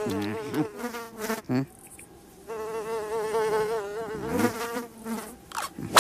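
Cartoon fly buzzing: a steady, wavering drone that breaks off about two seconds in, starts again half a second later and stops near the five-second mark.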